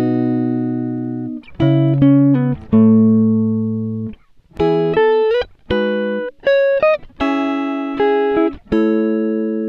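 Background music: plucked guitar chords, each struck and left to ring and fade, about one a second.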